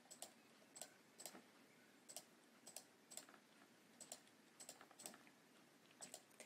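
Faint computer mouse clicks, about a dozen, spaced roughly half a second apart.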